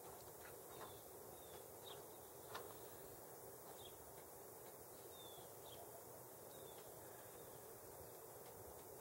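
Near silence: faint outdoor hiss with a few soft, short, high down-slurred bird chirps scattered throughout, and one soft click about two and a half seconds in.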